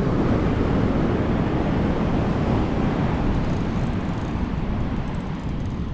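Wind buffeting the microphone over the steady wash of surf: a continuous low rumble with no distinct events, easing slightly near the end.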